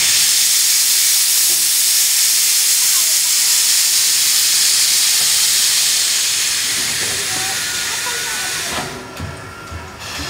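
JNR Class C62 steam locomotive No. 2 venting steam low at the front, around the cylinders, in a loud steady hiss that tails off over a few seconds and then cuts off sharply about nine seconds in.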